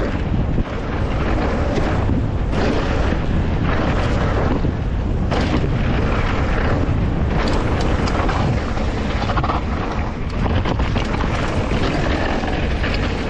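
Wind buffeting an action camera's microphone as a mountain bike descends a wet dirt trail, with the tyres rolling through mud and gravel and the bike rattling and knocking over bumps.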